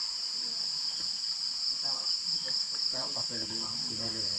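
Steady, high-pitched chorus of insects, unbroken, with faint distant voices underneath.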